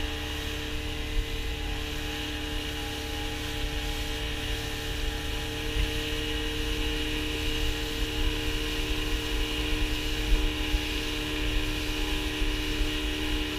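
Outboard motor of a speedboat running steadily at speed, a constant drone, with wind and low rumble on the microphone.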